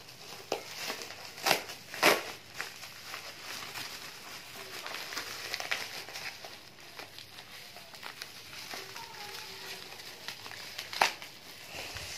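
Bubble wrap being pulled apart and crumpled by hand: a continuous crinkling rustle, broken by a few sharp, loud snaps about a second and a half in, at two seconds, and near the end.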